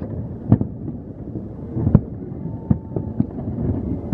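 Aerial fireworks shells bursting at a distance: sharp bangs about half a second in, near two seconds, and twice around three seconds, over a continuous low rolling rumble of further bursts.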